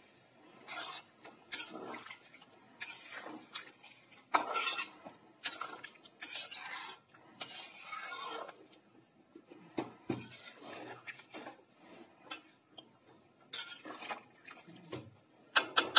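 Metal ladle scraping and clinking against the sides of a metal kadhai as a chicken and potato curry is stirred, in irregular strokes, with a quick run of clinks near the end.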